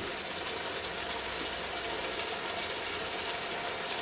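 Prawn masala simmering and sizzling in a pot on a gas burner turned to full flame: a steady hiss and low rumble with scattered small pops, as the juices from the prawns, tomato and yoghurt cook off.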